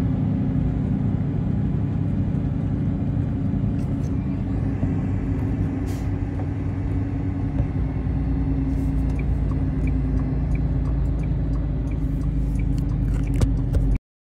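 Semi truck's diesel engine running steadily under way, heard from inside the cab as a low drone. In the second half a faint regular ticking comes in, about twice a second. The sound cuts off suddenly near the end.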